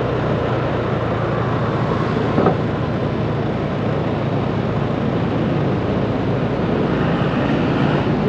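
Steady traffic and road noise heard while travelling along a busy city avenue, with engine rumble underneath and a brief knock about two and a half seconds in.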